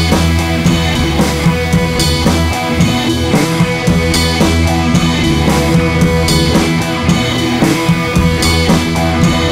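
Rock music with drum kit and guitar, keeping a steady beat.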